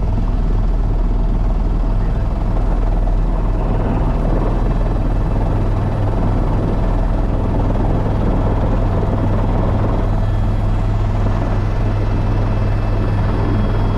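Helicopter rotor and engine heard from inside the cabin as it comes in to land: a loud, steady low rotor drone with a thin, high whine above it that grows stronger near the end.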